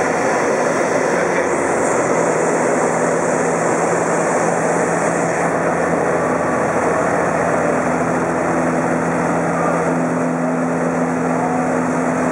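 Super Decathlon's four-cylinder Lycoming engine and propeller running steadily, heard inside the cockpit during aerobatic manoeuvring as a dense, even noise with a low engine tone. A second, higher tone joins about eight seconds in.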